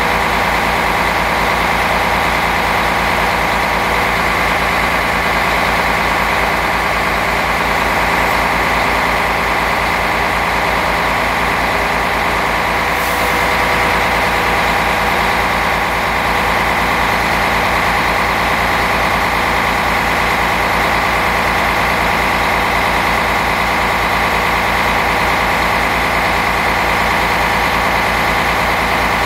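Mercedes-Benz OM457hLA inline-six diesel of a Citaro bus running steadily at a raised 1300 rpm with no load, warming up to operating temperature. It is heard close up at the open engine bay.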